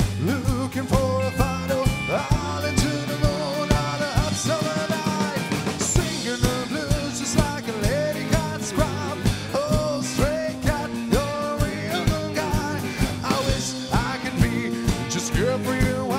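Live rockabilly band playing an instrumental break: a lead instrument plays a melody full of bent and sliding notes over a bass line and a drum kit keeping a steady beat.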